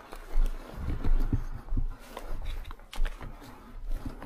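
Footsteps and gear rustling close to the microphone: irregular low thumps about two a second.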